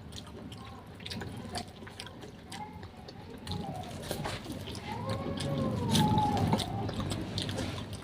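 Wet mouth sounds of seafood being eaten with a buttery sauce: repeated lip-smacks, sucking and small clicks. A rising-then-falling humming tone about five seconds in.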